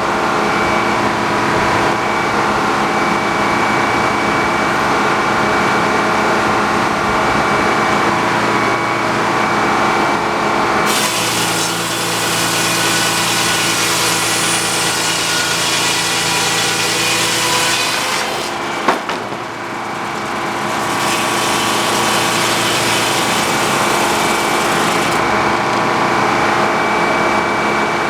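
An engine-driven sawmill running steadily while its saw cuts through a log. The cutting gets harsher twice, for several seconds near the middle and again later, with one sharp knock between.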